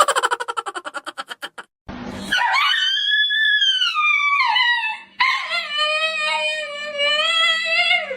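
A dog howling in two long, drawn-out howls, the first rising and then falling in pitch and the second held fairly level, after a quick run of short pulses at the start.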